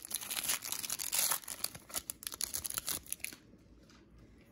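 Foil wrapper of a Pokémon Brilliant Stars booster pack being torn open and crinkled by hand, a dense crackling with sharp snaps that dies down after about three seconds.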